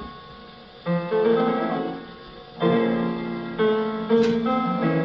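Piano introduction of a 1934 shellac 78 record playing on an HMV 114 wind-up gramophone: piano chords enter about a second in and again halfway through, with a single sharp click near the end.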